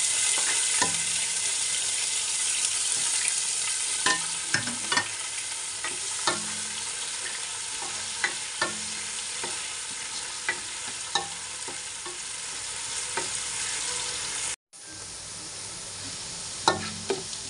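Chopped garlic and onion sizzling in hot oil in a nonstick frying pan as they are sautéed, with a utensil clicking and scraping against the pan every second or so while stirring. The sound breaks off for an instant near the end, then the sizzle goes on a little quieter.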